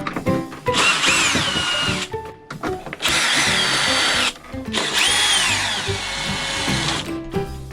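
Cordless electric drill-driver running in three bursts of one to two seconds, its whine dropping in pitch and then holding steady each time.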